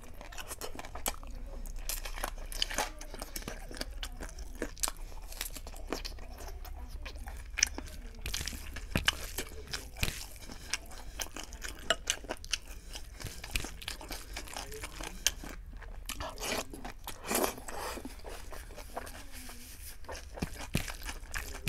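Close-miked eating sounds of a person eating chicken biryani by hand: wet chewing, lip smacks and finger sucking, heard as many short irregular clicks.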